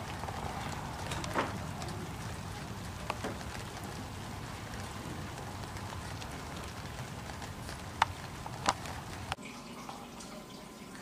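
Steady hiss of outdoor background noise with a few faint clicks, giving way to quieter room tone near the end.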